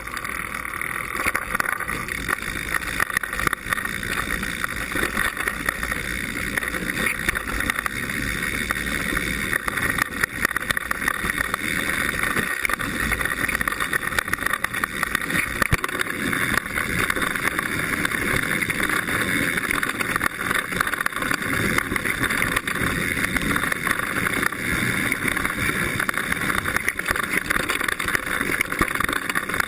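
Mountain bike rolling down a dirt trail: steady tyre and wind noise with constant small rattles and knocks from the bike, picked up by a camera fixed to the seatpost.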